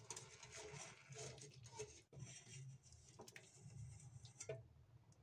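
Near silence with a few faint clicks: a wire skimmer lifting boiled jackfruit pieces out of water in a steel pot.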